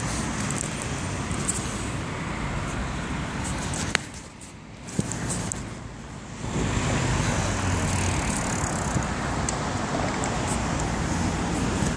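Road traffic and rolling noise heard from a moving bicycle on a cycle path beside a busy street, with rumble and handling noise on a hand-held phone's microphone. A couple of sharp clicks about four and five seconds in, then the noise grows louder again from about halfway through.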